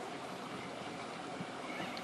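Steady whirr of a Traxxas TRX-4 RC crawler's electric motor and gearbox running at crawl speed as it climbs over rock, with a couple of faint ticks from the tyres and chassis on the stone.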